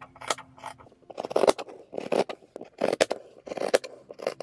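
Large fabric scissors snipping through cloth and a paper pattern: a quick, irregular run of short crunching cuts, two or three a second.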